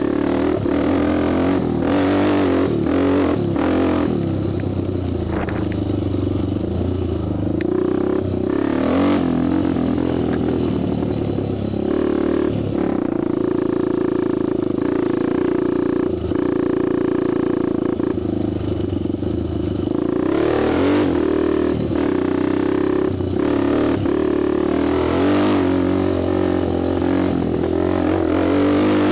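Honda TRX250X quad's single-cylinder four-stroke engine running while being ridden, revving up and easing off repeatedly, with clear rises in pitch about nine seconds in and again about twenty seconds in.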